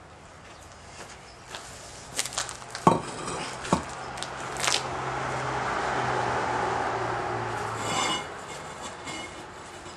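Pavers clacking and knocking against each other as they are lifted off a stack, with several sharp clacks. Then a rushing noise swells and dies away about eight seconds in.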